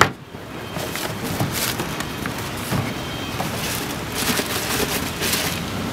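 A sharp click at the start, then intermittent rustling and handling noises as a pair of sneakers is taken out and set down on its box, over a steady outdoor background with passing traffic.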